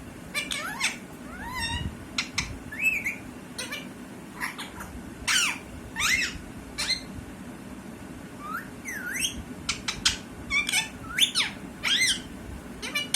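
Pet parrot making a string of short squawks and chirps, many of them sliding up or down in pitch, with brief gaps between.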